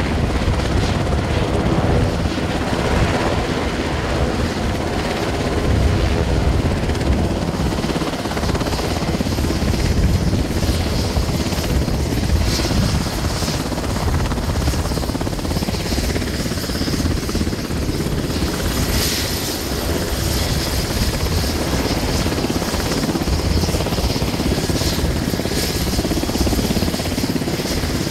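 Sikorsky CH-148 Cyclone helicopter running on the ground with its main rotor turning. The steady beat of the rotor is overlaid by the high whine of its twin turboshaft engines.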